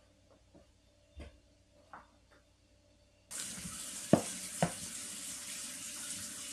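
Two sharp knocks of a ceramic plate set down on a marble tabletop, over a steady hiss that starts suddenly about three seconds in.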